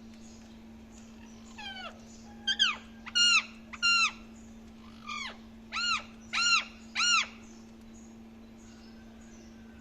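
Indian ringneck parakeet giving a run of about eight short, loud calls in quick clusters, each note rising and then falling in pitch. A steady low hum lies underneath.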